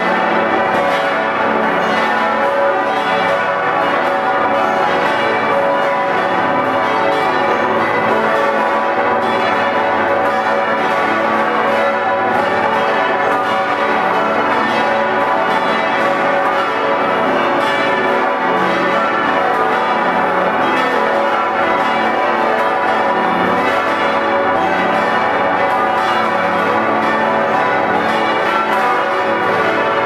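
Full peal of ten swinging bronze church bells, cast by Otto of Hemelingen in 1951 and tuned from low F-sharp up to high C-sharp, all ringing together. Heard up close inside the bell chamber: a loud, dense, continuous mass of overlapping strikes and ringing tones.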